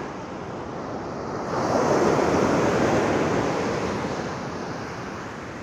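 Waves washing onto the beach, mixed with wind buffeting the microphone in a stiff breeze; the rush of noise swells about a second and a half in and dies back again.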